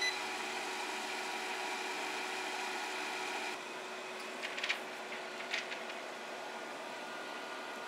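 Zero Breeze Mark 2 portable air conditioner running: a steady whir of its fan and compressor with faint steady tones, a little quieter after about three and a half seconds. A few light clicks near the middle as a hand handles the unit's casing.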